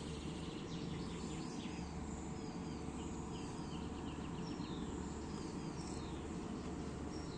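Several small birds singing at dawn, a dense run of short high chirps and twitters, over a steady low background rush.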